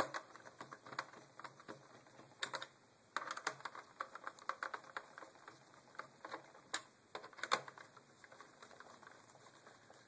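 Small Phillips screwdriver turning screws into a laptop's plastic bottom cover plate: irregular light clicks and ticks of the tip in the screw heads and against the plastic, with a quick run of clicks a few seconds in.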